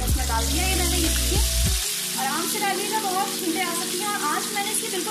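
Deep oil in a frying pan sizzling and bubbling steadily around a piece of fish coated in besan and masala, just lowered in to deep-fry.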